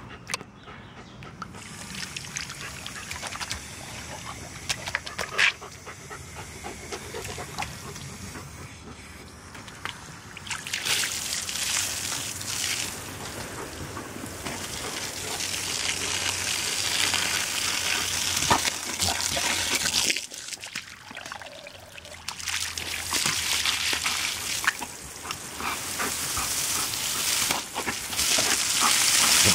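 Water jet from a garden hose hissing and splashing onto grass and wet paving, with a German Shepherd biting at the spray. The spray gets much louder about ten seconds in and drops away briefly around twenty seconds.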